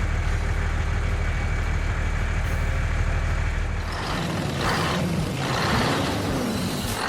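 Heavy truck engine running steadily. About four seconds in, a few short hisses break in and the engine pitch rises and falls once.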